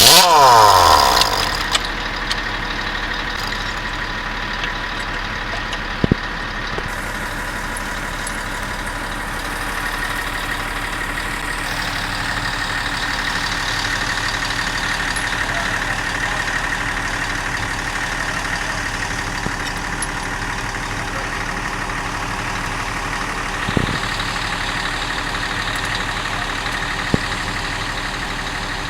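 Heavy diesel truck engine idling steadily. In the first second or so there is a brief loud burst whose pitch falls away, and a few short knocks come later.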